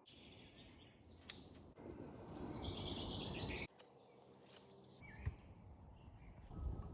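Spring forest ambience: birds singing, with the clearest burst of song between about two and three and a half seconds in, over a low background rumble. The background changes abruptly a few times, and there is one sharp click a little after five seconds.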